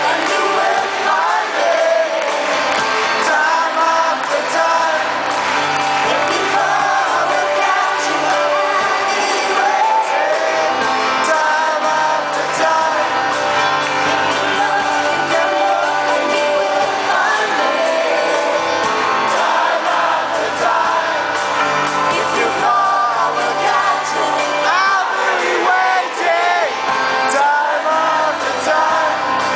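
A live band performs a pop song, with keyboards, cello and guitar, and singing over it. Shouts and whoops come from the audience.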